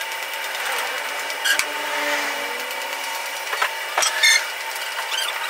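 Upholstery fabric rustling and rubbing as it is pulled and smoothed over a chair frame, over a steady hum, with a few sharp clicks, the loudest about four seconds in.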